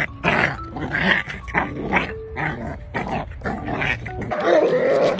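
Belgian Malinois dog vocalizing in a rapid run of short, rough sounds, about two or three a second. Near the end this gives way to a drawn-out, wavering sound.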